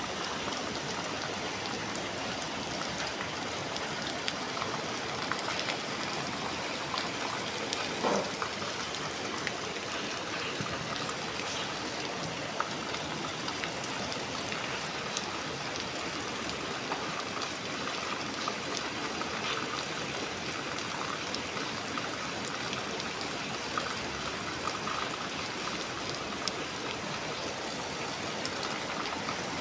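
Steady rain heard from inside a building, a constant wash with many small drips and patters. One brief louder sound stands out about eight seconds in.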